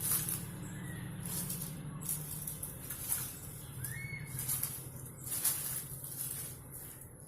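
Outdoor background with a steady low hum and hiss, and a bird chirping briefly twice, about a second in and again about four seconds in.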